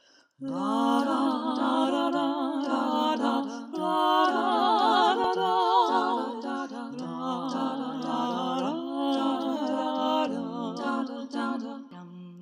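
Wordless a cappella vocal harmonies: several layered voice parts humming sustained chords with vibrato, starting about half a second in.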